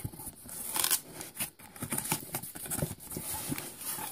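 Hands handling a cardboard shipping box, opening its flaps: a run of irregular knocks, taps and scrapes on the cardboard, with a brief rustle about a second in.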